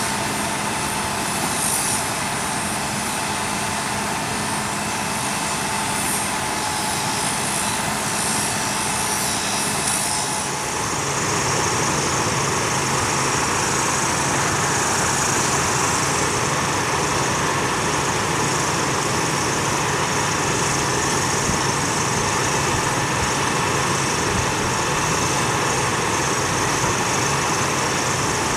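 Abrasive rail saw cutting through a steel rail with a steady high whine. About ten seconds in the cutting sound stops and a different steady engine sound takes over.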